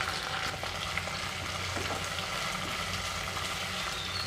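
Small onions (shallots) and thoothuvalai leaves sizzling steadily in hot sesame oil in a kadai while being lightly sautéed.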